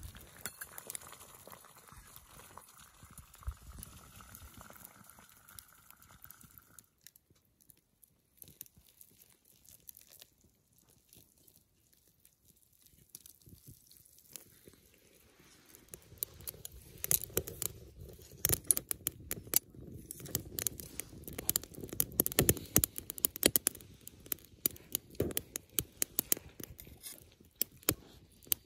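Water at a rolling boil in a metal camp pot, hissing steadily as the lid is lifted, stops abruptly about seven seconds in. From about sixteen seconds in comes a busy run of sharp clicks and scrapes, a spoon stirring hot-water-soaked oats in a metal bowl.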